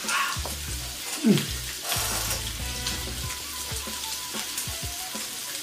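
Meat sizzling steadily on a hot tabletop grill pan.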